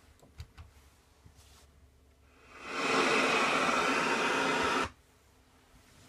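A couple of faint button clicks, then the iRV Technologies RV stereo's speakers give a steady hiss of radio static that swells in over about half a second and cuts off suddenly a couple of seconds later.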